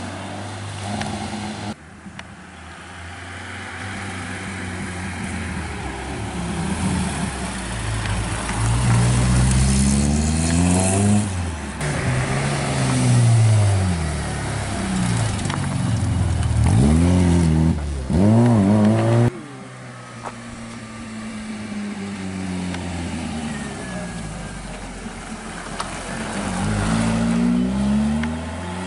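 Small classic rally cars driven hard up a hill one after another, their petrol engines revving and falling back through gear changes, the engine note rising and dropping again and again. The sound breaks off suddenly about two seconds in and again about nineteen seconds in as one car gives way to the next.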